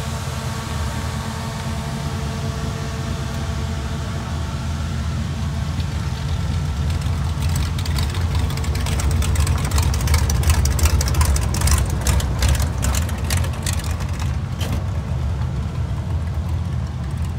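1966 Dodge Charger drag car's V8 idling. For several seconds in the middle it grows louder and choppier, with sharp, uneven exhaust pulses.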